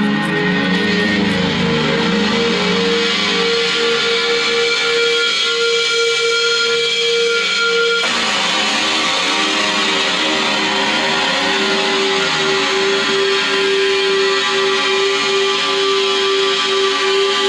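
Electric guitar through effects, playing long sustained notes over a dense wash. The held pitch drops to a lower note about eight seconds in.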